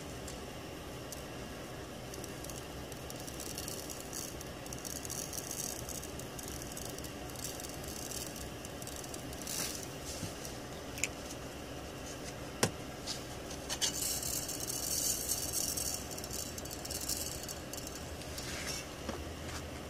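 0.5 mm leaded solder balls rolling and rattling across a BGA reballing stencil and scattering into the tray, a fine, hissy, high-pitched patter that builds and is heaviest about two-thirds through. A few sharp clicks from the metal jig come along with it.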